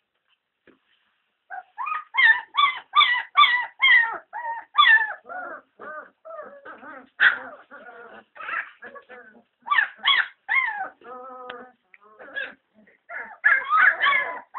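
German Shepherd puppies whining and yelping in a rapid string of short high cries, starting about a second and a half in and going on without a break.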